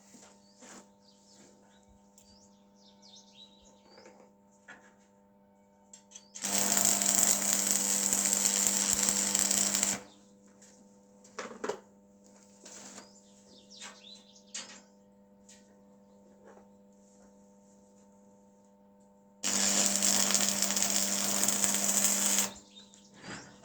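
Two bursts of loud, even noise from a metalworking power tool, each about three seconds long, over a steady hum; faint clicks and small chirps come between the bursts.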